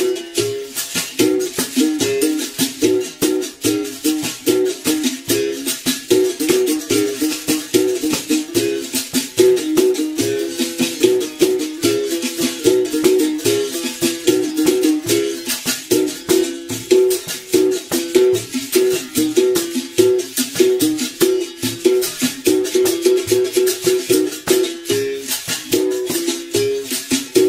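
Berimbau played solo: the string is struck with a stick in a fast, steady rhythm, the note switching back and forth between a lower and a higher pitch, while a caxixi basket rattle shakes with each stroke.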